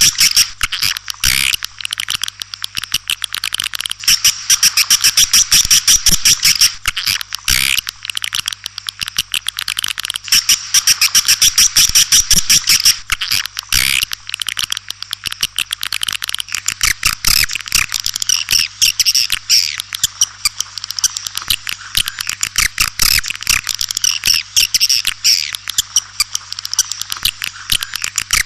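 White-nest swiftlets calling: a dense, continuous chorus of rapid twittering chirps and clicks. This is the swiftlet call sound played in swiftlet houses to lure the birds in to roost and nest.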